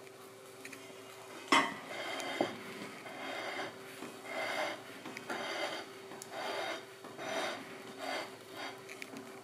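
A china plate knocks once on a wooden worktop, then is slid and turned on the wood in a run of short scrapes, about one every two-thirds of a second.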